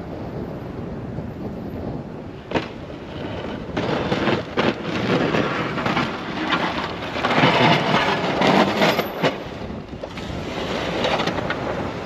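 Strong wind buffeting the microphone in gusts, loudest in the middle, with one short sharp knock about two and a half seconds in.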